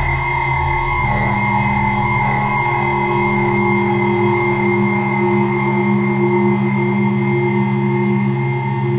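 Electronic drone music from a Lyra-8 synthesizer rig: several steady held tones layered together, with a bright high tone on top. About a second in a new middle tone enters while the deep rumble underneath fades away.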